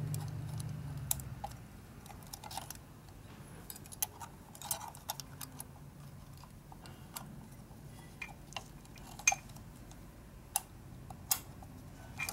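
Scattered small metallic clicks and taps as a band strap and wire clip are worked by hand into place around a chrome engine housing, the sharpest click about nine seconds in.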